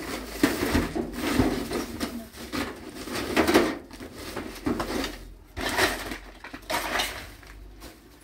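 Belongings being rummaged out of a metal storage trunk: irregular rustling and crinkling of plastic bags and cloth, with scattered knocks of items against the trunk.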